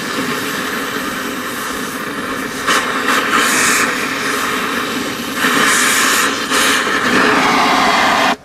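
Oxy-acetylene cutting torch running with a steady, loud hiss as it plays on a stainless steel compressor mounting bolt, which the torch cannot cut. The hiss grows louder twice, about three seconds in and again about halfway through, then cuts off suddenly at the end.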